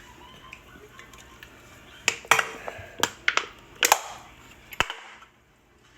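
Aluminium Sprite cans crinkling and clicking in the hand: a quick series of about seven sharp cracks over roughly three seconds.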